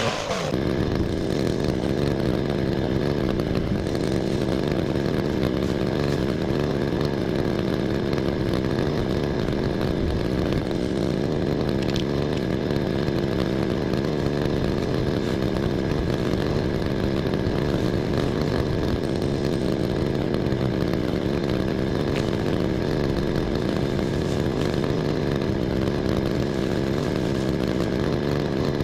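Handheld power pruning tool running steadily, its motor held at an even pitch while cutting back an overgrown shrub.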